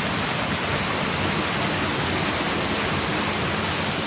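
Steady rushing of flowing water, like a fast stream or small waterfall, an even hiss with no rhythm or change.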